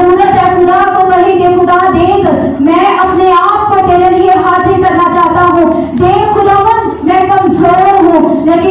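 A woman singing loudly, with long held notes and short breaks for breath about two and a half and six seconds in.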